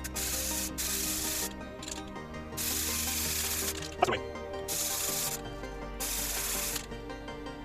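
Aerosol spray-paint can hissing in five short bursts, each about half a second to a second long, as black paint is sprayed on in passes. A single sharp click comes about four seconds in.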